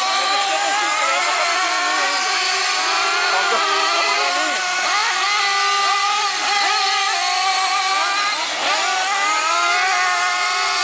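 Several radio-controlled model cars racing, their small high-revving engines rising and falling in pitch as they accelerate and brake, overlapping one another.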